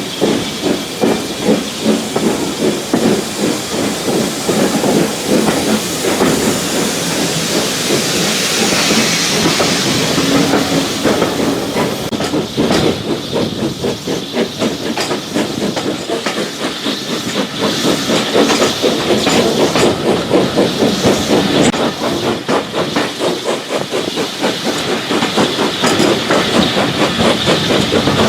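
Steam locomotive working along the line: a quick, even run of exhaust beats over a steady hiss of steam.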